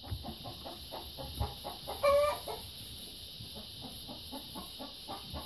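Chickens clucking in a rapid steady run, about five or six clucks a second, with one short higher call about two seconds in.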